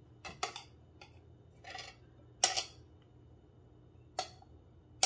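A knife scraping and clinking against a plate as crumbled feta is pushed off into a salad bowl. There are about five short scrapes, and the loudest comes about halfway through.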